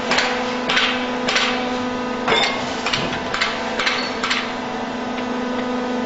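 Truck-mounted concrete mixer pump running with a steady hum, broken by a series of sharp knocks about every half second to a second that stop about four seconds in.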